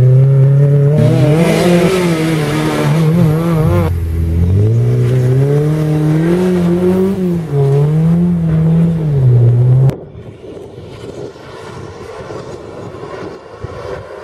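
Rally car engine at full throttle on a gravel stage, its pitch climbing and dropping repeatedly with the gear changes and lifts. About two-thirds of the way through the sound drops suddenly to a much fainter engine note.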